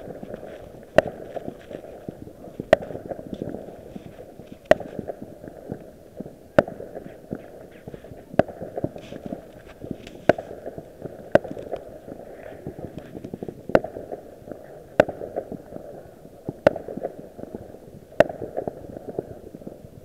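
Fireworks going off, with sharp bangs every second or two over continuous crackling.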